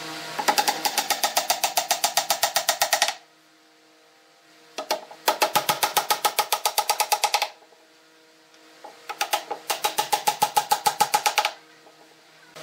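Claw hammer rapidly tapping wooden dowels into holes in a pine cabinet top, in three runs of quick, even strikes with short pauses between them.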